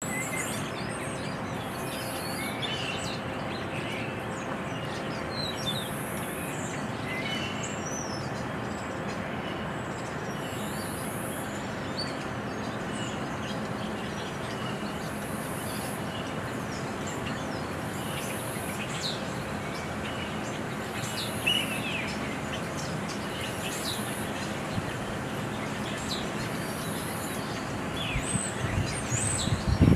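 Outdoor ambience: a steady background rush with a faint hum under it, birds chirping now and then, and a brief high buzz that comes back every few seconds. A few low knocks come in near the end.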